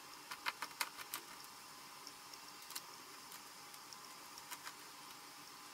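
Faint, scattered little clicks of a size 0 Phillips screwdriver working tiny screws out of the side of a laptop LCD panel's mounting frame, most of them in the first second and a half and sparser after.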